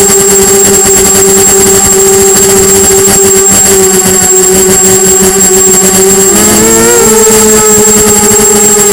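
Brushless motors and propellers of a Diatone Blade 250 quadcopter, heard from the camera on board: a loud, steady whine over a rushing hiss. About six seconds in the pitch splits and rises as the throttle comes up and the quad climbs, then settles.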